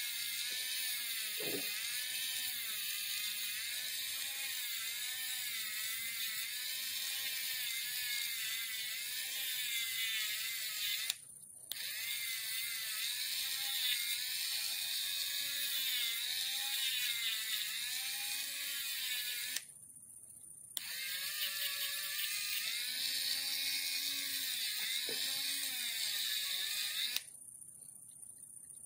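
Dremel rotary tool spinning a nearly worn-down fine sanding wheel against a copper sword guard, polishing it to a smooth, shiny finish. A steady high whine whose pitch wavers as the wheel bears on the metal, falling away briefly three times.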